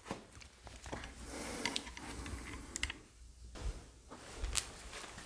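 Faint, irregular clicks and taps, with a few dull knocks standing out about three and a half to four and a half seconds in.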